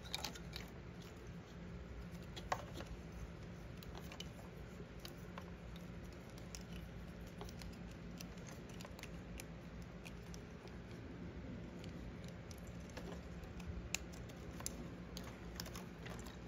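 Plastic wiring-harness connectors on a Zero electric motorcycle being handled and pushed together, with light rustling of wires and a few sharp clicks as they latch, the clearest about two and a half seconds in and again about fourteen seconds in.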